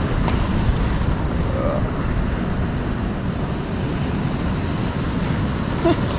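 Steady wind rumble on the microphone mixed with the wash of the sea.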